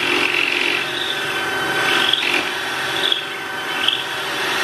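DeWalt cordless drill running steadily as its bit bores into the end grain of a square wooden leg. The pitch swells briefly about once a second as the bit cuts.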